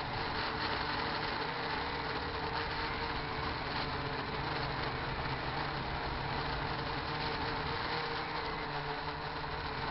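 RC quadcopter's electric motors and propellers buzzing steadily in flight, with heavy wind rumbling on the microphone.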